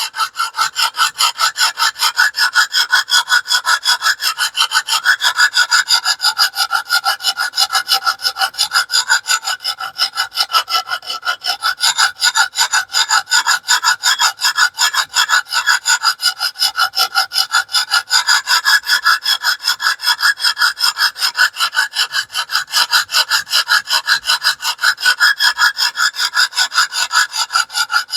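Sharpening stone on a TS Prof Kadet Pro guided sharpener stroking back and forth along a small cleaver-shaped knife's edge, a scraping rasp in quick, even, unbroken strokes. The second side of the blade is being ground to raise a burr.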